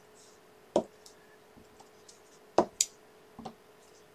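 Clear acrylic stamp block tapped on an ink pad and pressed onto paper on a desk: a few short, sharp knocks and clicks, two in quick succession a little past halfway.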